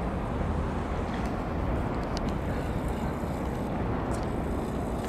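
Steady low rumble of distant city traffic across the river, with a few faint ticks.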